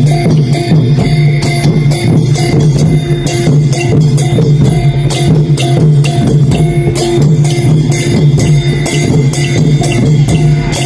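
Thai long-drum (klong yao) music: a steady, fast run of drum strokes and bright percussion hits over a held low tone.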